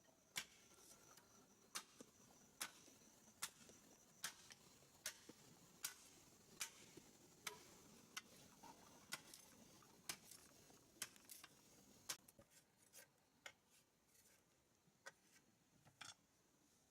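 Sharp knocks repeating evenly, about one every 0.8 s, turning quicker and irregular about twelve seconds in, with a faint steady high tone behind them.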